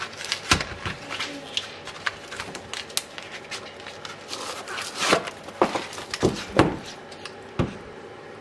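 A paperboard box of frozen mackerel fillets being pulled open by hand: the cardboard crackles and tears in a series of sharp, uneven snaps, thickest about five to seven seconds in.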